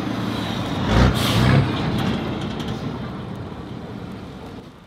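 A heavy truck with a trailer passing close by a moving car, its engine and tyre rush swelling to a peak about a second in and then fading away.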